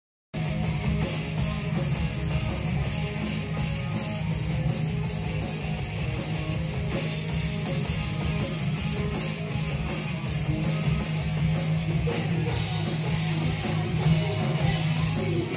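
Heavy metal band playing: electric guitars, bass and a drum kit keeping a steady cymbal beat, cutting in suddenly mid-song.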